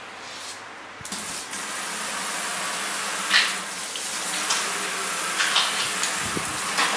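Water running with a steady hiss that starts about a second in, with a few sharper splashes as it wets a wooden chopping block.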